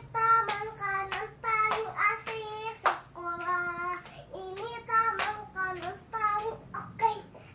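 A young girl singing a children's nursery song unaccompanied in a high child's voice, phrase after phrase with short breaks between.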